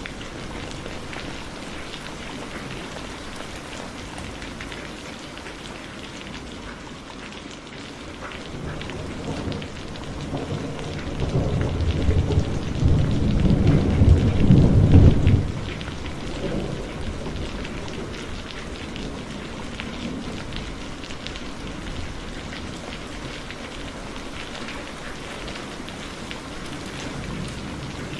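Heavy rain falling steadily, with one long roll of thunder that builds from about nine seconds in, rumbles loudest a few seconds later and stops abruptly after about six seconds.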